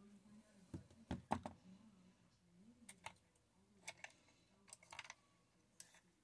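Faint, irregular clicks and taps, about ten of them, from makeup items being handled: an eyeshadow palette and brushes.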